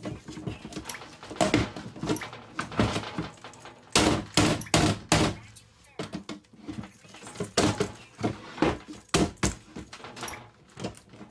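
A flat-head screwdriver being forced and levered at the lid seam of a small steel BillConch biometric gun safe: an irregular run of sharp metal clanks, knocks and scrapes as the blade bites, slips and the box shifts on the table.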